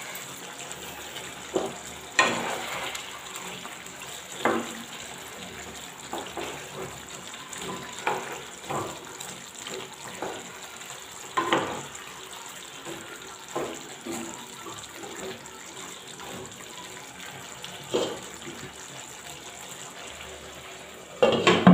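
A spatula stirring thick cauliflower curry in a nonstick pan: irregular scrapes and soft knocks over a steady hiss from the simmering sauce. Near the end a glass lid is set on the pan with a brief clatter, the loudest sound.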